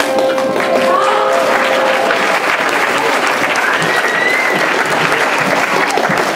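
Audience applauding in a school hall, dense steady clapping, while the last held note of the song dies away in the first couple of seconds and a few voices call out over the clapping.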